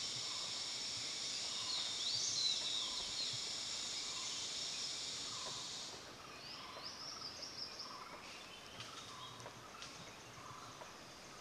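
Forest ambience: a steady high-pitched insect drone that cuts off suddenly about six seconds in, with bird calls throughout, short rising chirps repeating more often in the second half.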